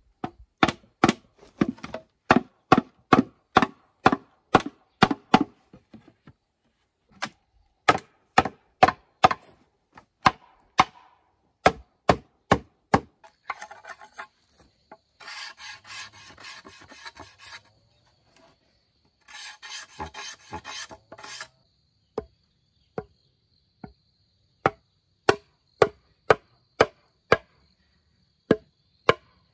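Bamboo being chopped with a hand tool: runs of sharp chopping strikes, about two to three a second. About halfway through, two rasping stretches of cutting or scraping on the bamboo, each about two seconds long, break up the strikes.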